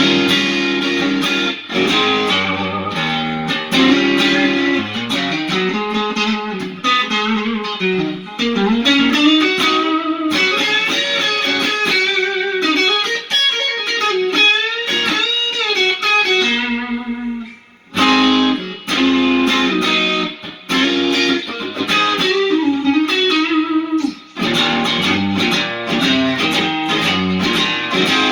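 Electric guitar (a Black1-style custom) played through a Lovepedal Supersix overdrive pedal into a Fender Hot Rod Deville amp, with no reverb: a run of lead phrases with string bends and vibrato, pausing briefly about 17 seconds in and again near 24 seconds.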